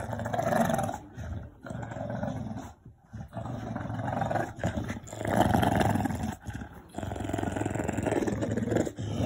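Dogs growling in play during a tug-of-war over a rope toy: a string of rough growls, each a second or so long, with short breaks between.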